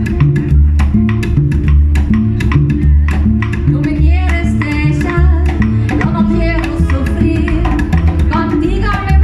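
Latin band playing a guaguancó: a repeating bass line and hand percussion with plucked guitar, and a melody line coming in about four seconds in.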